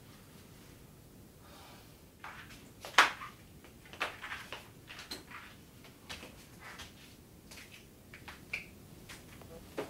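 A person moving about in a small tiled bathroom: a sharp knock about three seconds in, then a run of softer taps, shuffling steps and clicks, with a brief squeak near the end.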